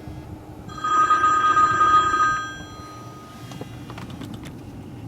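Incoming phone call ringing: one ring of a two-tone ringtone, starting just under a second in and lasting under two seconds, just after music playing through the car's audio cuts off.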